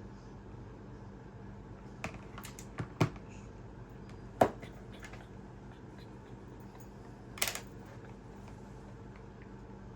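Scattered sharp clicks and taps of small tools and phone parts being handled on a workbench: a quick cluster about two to three seconds in, the loudest near four and a half seconds, and a short rattle near seven and a half. A steady low electrical hum runs underneath.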